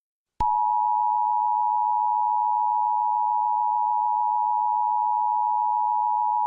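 Emergency Alert System attention signal: the steady two-tone alarm that announces an emergency alert, starting abruptly with a click about half a second in and holding unchanged.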